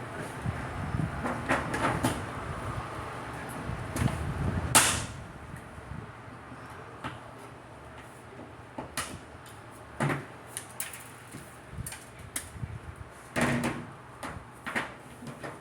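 Hand pop-rivet gun setting rivets in aluminum sheet: scattered clicks and sharp snaps, the loudest about five seconds in, with another cluster near the end.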